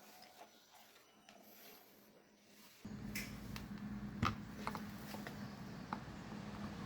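A small electric motor switches on about three seconds in and runs with a steady hum, with a few sharp clicks of handling over it.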